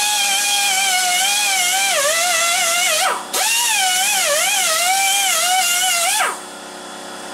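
A handheld power tool motor running at high speed, its whine dipping and wavering as it is loaded. It briefly winds down and picks up again about three seconds in. Near the end the trigger is let off, it winds down with a falling pitch and stops for about a second, then starts again.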